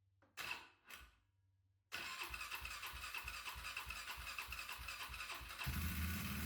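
Polaris Sportsman 400 HO ATV's single-cylinder four-stroke engine being cold-started on choke: two short bursts, then the starter cranks it with a slow even pulse for a few seconds, and near the end it catches and runs louder.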